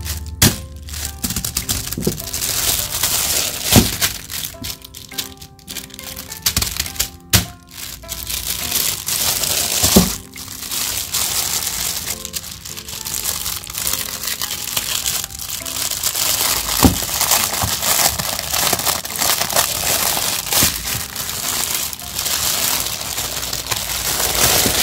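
Thin clear plastic wrapping crinkling and crackling as hands rub over it and peel it off a giant silicone pop-it fidget toy, with a few sharper clicks along the way. Soft background music plays underneath.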